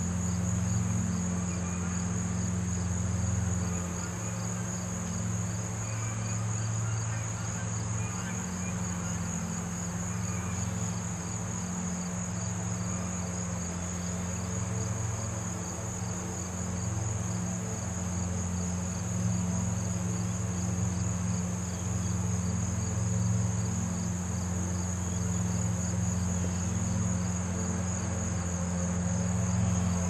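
Insects chirring steadily in a high, fast-pulsing trill, over a steady low hum.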